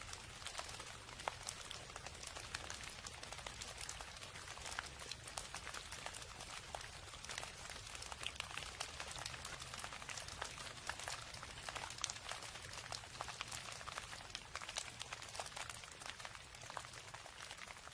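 Steady rain falling, with many small irregular drop ticks pattering over an even hiss and a low steady rumble underneath.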